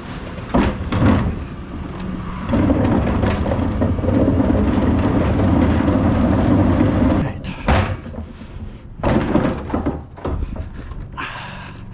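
Refuse truck's rear bin lift cycling two wheelie bins: a loud, steady mechanical drone of engine and hydraulics for about five seconds, which stops abruptly. A few sharp knocks follow.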